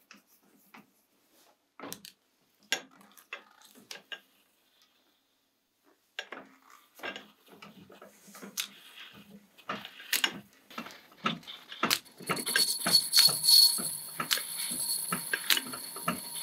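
Small metal lathe being set up: scattered metallic clicks and knocks of the carriage and tool post being handled. About twelve seconds in the lathe is running, turning a thin brass rod against the cutting tool, with a steady high whine and scraping that is much louder than the clicks.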